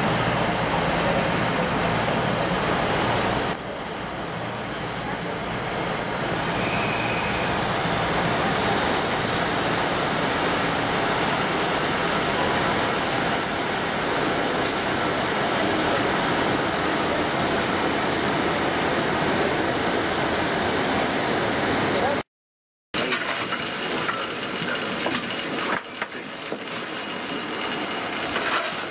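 A steady hiss runs for about twenty-two seconds and cuts off suddenly. Then Bulleid Battle of Britain class steam locomotive 34052 Lord Dowding moves past close by, hissing steam, with scattered knocks and clanks.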